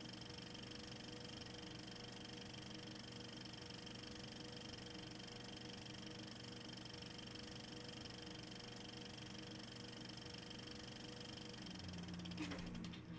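Faint, steady electrical hum and hiss with a few fixed whining tones, a recording's noise floor, and a short cluster of scraping clicks near the end.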